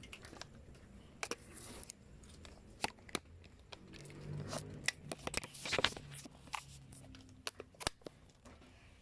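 Scattered clicks, taps and rustling of plastic equipment being handled, busiest about halfway through.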